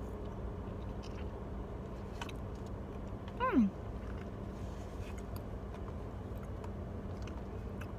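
Someone biting into and chewing a soft chocolate dessert, with faint mouth clicks, over a steady low hum. About three and a half seconds in comes one short, loud call or squeak that falls steeply in pitch.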